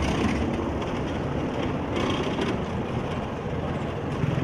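Street traffic noise, with a car driving along a stone-paved road.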